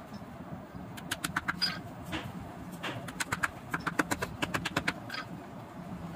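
Small shoemaker's hammer tapping a glued suede lining down onto a leather chappal footbed: quick runs of light taps, several a second, with short pauses between runs.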